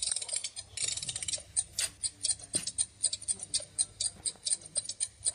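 Quick, steady ticking of an animated alarm clock in an augmented-reality coloring app, about five ticks a second, with a denser stretch of clicking about a second in.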